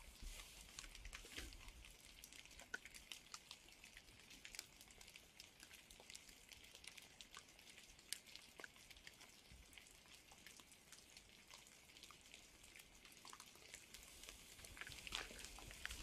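Faint, scattered raindrops pattering and dripping as irregular light ticks, a little busier near the end.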